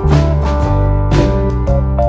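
Background music: an instrumental track with guitar and a steady beat.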